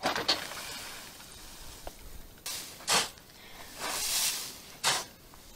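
A shovel digging into loose seed-husk waste on a trailer bed and flinging it out: rushing showers of chaff with a few scoops. Short, sharp scrapes of the blade stand out about three and five seconds in.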